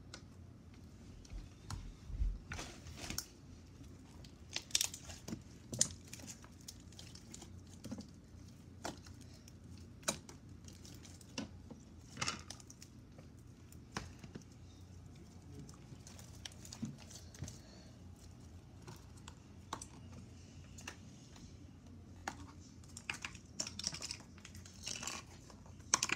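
Hands squishing and stretching a large lump of pink slime, giving irregular sticky clicks and small pops as it folds and pulls apart. Near the end a busier run of louder clicks comes as a small plastic tub of blue slime is handled.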